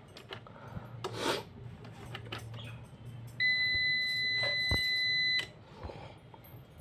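Microtek Legend 650 UPS's internal buzzer sounding one steady, high beep of about two seconds, about halfway in, after its power button is pressed. Before the beep, the plastic case is handled with light rubs and clicks.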